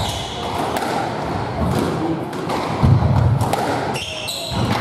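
Squash rally: the ball cracking off rackets and the walls, with shoes squeaking and feet thudding on the wooden court floor. Short high squeaks come near the start and again near the end.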